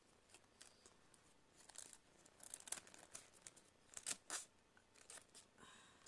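Faint handling of small tablet parts: scattered light clicks and short scraping rustles as pieces are moved and set one on top of another, with a few sharper clicks around the middle.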